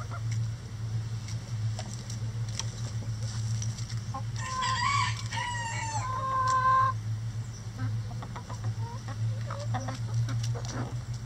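A rooster crows once about halfway through, a call of about two and a half seconds that ends on a held note. Soft hen clucking comes and goes around it, over a steady low hum.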